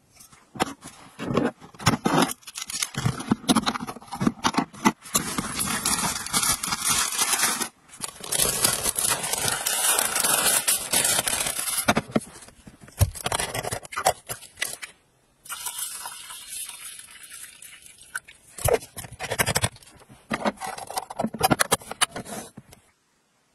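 Handling of a metal rice tray and a plastic lunch-box container on a tabletop: scraping and clattering of metal and plastic, with many small knocks and a long stretch of steady hiss in the middle.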